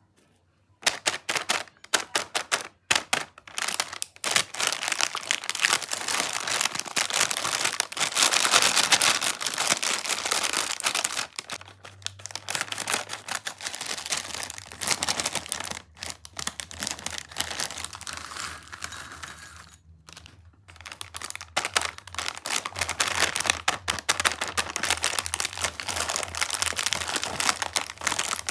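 Plastic Kurkure snack packet being handled and opened, crinkling and crackling almost without a break, with a brief pause about two-thirds of the way through.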